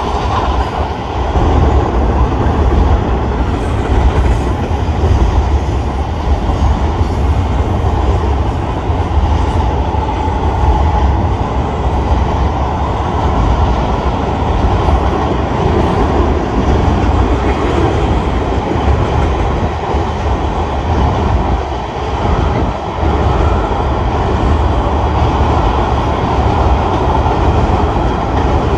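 Freight train cars, container cars and then tank cars, rolling steadily across a railway bridge, their steel wheels running on the rails.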